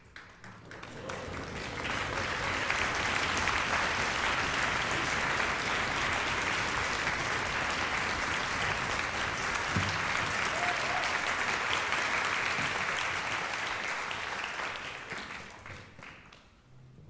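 Audience applauding, swelling over the first two seconds, holding steady, then dying away near the end.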